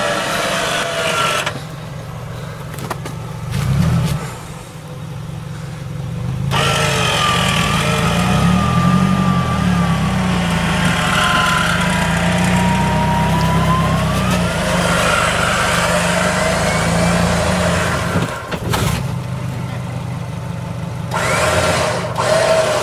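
Mitsubishi L300 4x4 van's 2.4-litre 16-valve petrol engine running while its winch hauls the van up a rock step. A wavering whine comes in several seconds in, dips and rises in pitch as the load changes, then falls away.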